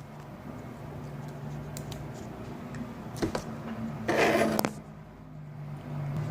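A spoon-fork multi-tool being handled, with a sharp click about three seconds in and a brief rustle ending in another click around four seconds in, over a low steady hum.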